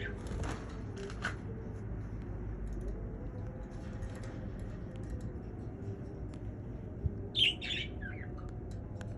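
Budgerigar chirping: a few soft chirps, then a louder run of three or four quick falling chirps about seven seconds in, over a steady low hum.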